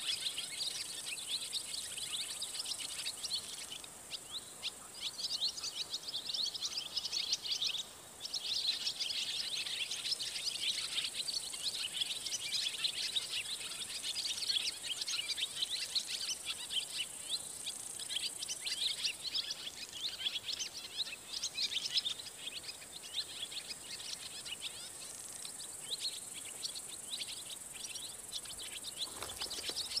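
Many small birds chirping at once in a nesting colony: a dense, overlapping chatter of short high calls over a steady high hiss, with a brief lull about eight seconds in.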